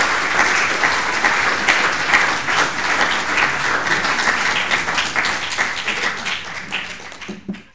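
Audience applauding, dying down near the end and then cut off abruptly.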